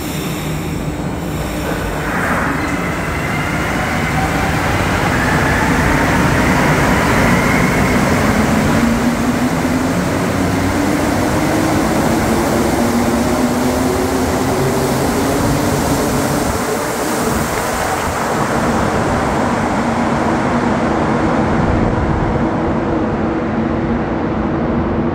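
Montreal Metro AZUR train pulling out of the station and accelerating past. Its traction motors whine in several tones that rise together in pitch for several seconds and then level off, over the rumble of its rubber-tyred running gear. The high hiss dies away near the end as the last cars leave.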